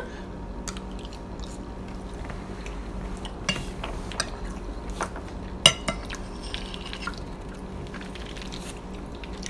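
Eating at the table: a fork tapping and scraping a plate now and then between mouthfuls, with chewing of mac and cheese. The sharpest clink comes a little past halfway, over a faint steady hum.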